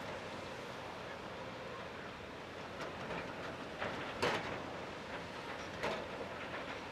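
Volvo excavator running steadily as it works its munching attachment, with a few sharp clanks and crunches, the loudest a little after four seconds and another near six seconds.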